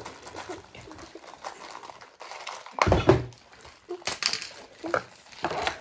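Handling noise of a small toy set being unpacked: rustling and knocking of little toy pieces and packaging, with a louder bump about three seconds in and a few shorter rustles after it.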